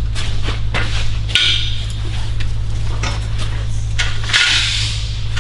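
Clinks, knocks and scraping of aluminum pieces being handled on a steel welding table, with a longer scrape near the end, over a steady low hum.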